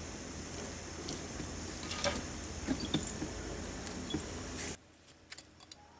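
Scattered light clicks and knocks of metal parts as an air compressor pump's cylinder head is handled and fitted, over a steady background hum and hiss. The sound drops away suddenly nearly five seconds in.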